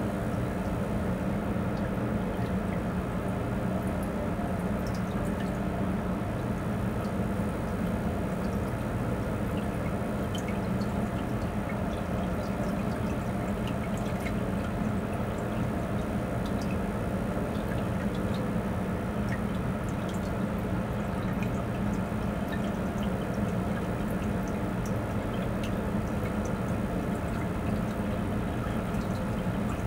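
Running reef aquarium equipment: a steady pump hum under water trickling, with scattered faint drips and ticks.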